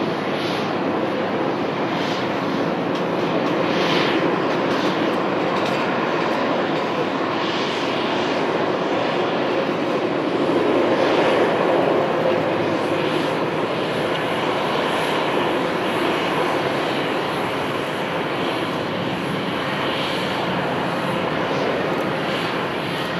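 Airbus A320-200 airliner's jet engines through touchdown and the landing roll. The steady engine noise swells about halfway through, then eases off as the plane rolls out along the runway.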